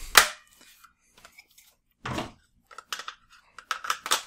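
Clicks and scrapes of a Beretta ARX 160 .22 LR rifle's polymer and metal parts being handled: a sharp click at the start, scattered light clicks, a short scrape about two seconds in, and a run of clicks near the end as a magazine is pushed into the magazine well.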